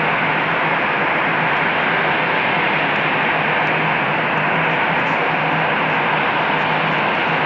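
Steady, even roar of a distant Boeing 737-800's jet engines, with a low constant hum underneath.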